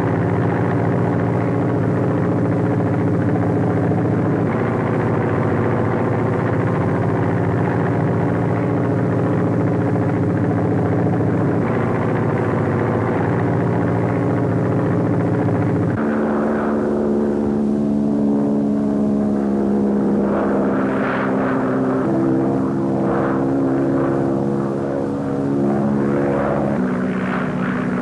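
Propeller airplane engine droning steadily in flight. About sixteen seconds in, the note shifts to a higher, more uneven drone.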